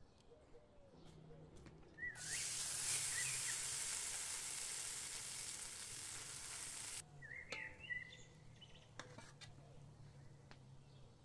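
Water draining from parboiled rice through a plastic colander, a steady hiss that starts abruptly about two seconds in and cuts off about seven seconds in. This is followed by a few light clinks of a metal ladle against the pot.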